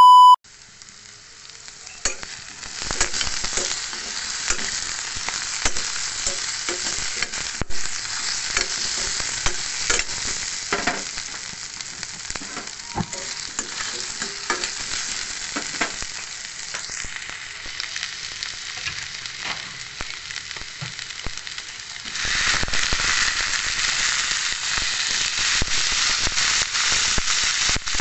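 Potatoes, hotdog slices, garlic and onion sizzling in hot oil in a pan, with a spatula scraping and clicking against the pan as they are stirred. The sizzle gets louder about three quarters of the way through.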